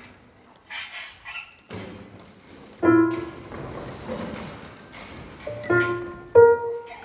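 Slow, sparse piano music: single notes and chords struck a few seconds apart, each left to ring and fade.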